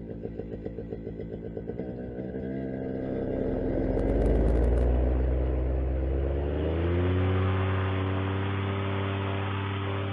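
Paramotor engine run-up. It first idles with separate firing pulses, then revs up from about two seconds in, peaks in loudness around the middle, and settles into a steady higher-speed run near the end, with the repaired propeller spinning.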